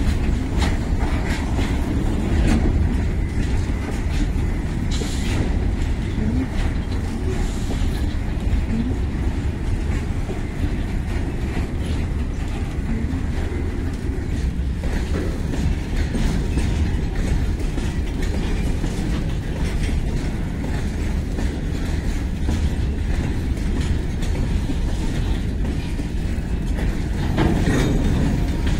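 A long rake of BOXN open freight wagons rolling steadily past: a continuous low rumble of steel wheels on rail, with many sharp clicks and clatters as the wheels run over rail joints.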